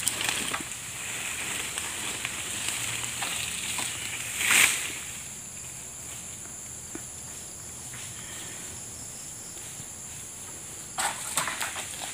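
Palm fronds rustling and scraping as a long-pole harvesting sickle works in an oil palm crown, with one loud swish about four and a half seconds in and more rustling near the end. A steady high-pitched drone carries on underneath.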